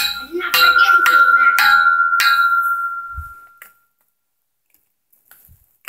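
A few quick metallic strikes, each leaving a clear chime-like ringing note at the same pitch. The ringing fades away about three and a half seconds in.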